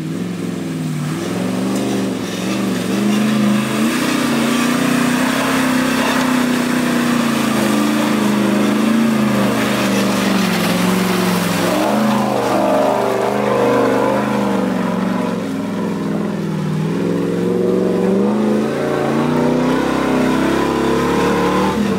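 Land Rover Discovery 1's 3.9-litre petrol engine revving hard under load as the truck works up a steep mud climb, the revs rising and falling as the driver feathers the throttle.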